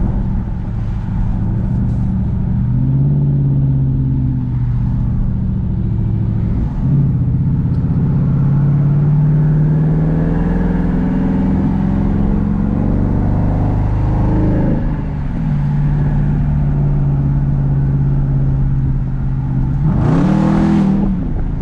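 Straight-piped Jeep SRT's HEMI V8 running under way, its exhaust note holding and then shifting up and down in pitch several times as it pulls and shifts. A quick rev rises and falls near the end.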